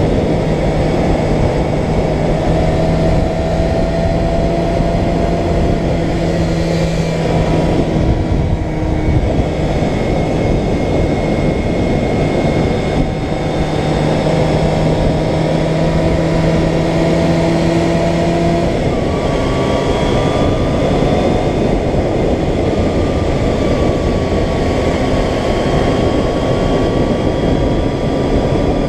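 Sport bike's inline-four engine running at a steady road speed, heard from the rider's helmet with heavy wind rush. The engine note climbs slowly in pitch and then changes abruptly about two-thirds of the way through.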